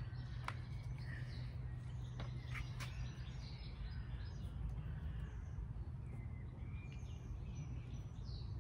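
Outdoor background: a steady low hum with faint, scattered bird chirps and a few light clicks in the first few seconds.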